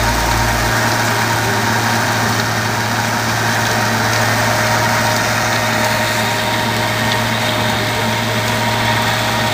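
New Holland T6080 tractor engine running steadily while pulling a seed drill, a constant even drone with no change in pitch.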